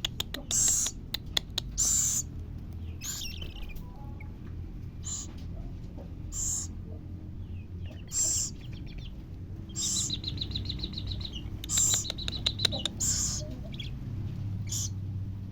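Baby scops owl giving short, raspy, hissing begging calls, repeated about every one to two seconds while it is being fed. Sharp clicks come in among the calls.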